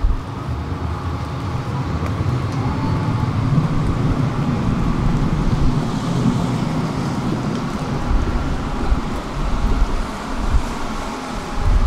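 Tram running along its rails: a dense low rumble of wheels and running gear under a faint, steady whine. The rumble jumps up sharply right at the start.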